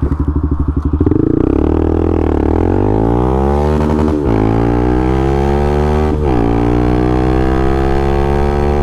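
Honda Twister 250 cc single-cylinder motorcycle engine at full throttle, its intake hose removed. The pitch climbs through the gears, with two upshifts about four and six seconds in, each a sudden drop in pitch before it rises again.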